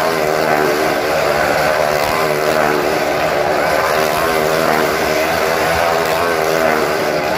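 Motorcycle engine running at high revs as it laps the vertical wooden wall of a wall-of-death drum, a steady note that wavers slightly in pitch.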